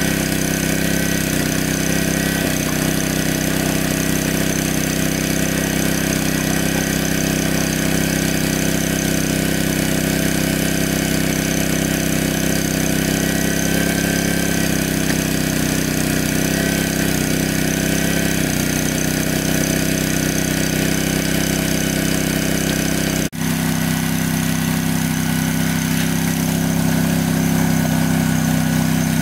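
Engine of a large water pump running steadily as it draws water out of a lake. About three-quarters of the way through there is a sudden short break, after which the engine's sound continues with a slightly different tone.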